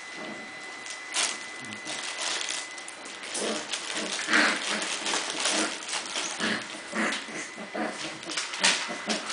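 Cardigan Welsh Corgi puppies playing rough, giving short growls and yips, with scuffling and scratchy clicks of paws on the tiled floor.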